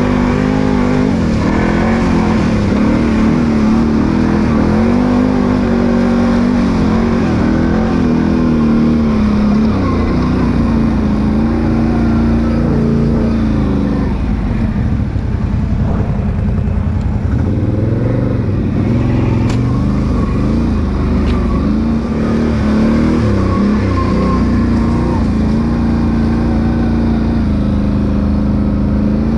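Can-Am ATV's Rotax V-twin engine running under way, its pitch rising and falling as the throttle is opened and eased off.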